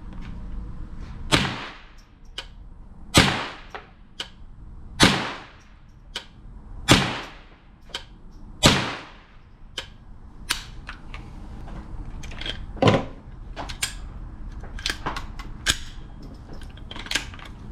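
.22LR AR-15 pistol with a CMMG conversion kit firing five single shots, spaced about two seconds apart, each with a short ringing tail. After a pause comes one more shot, among fainter sharp cracks and clicks.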